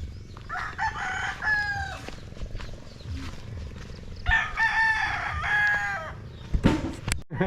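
A rooster crowing twice, each crow a pitched call about a second and a half long, over a low background rumble, with a short knock near the end.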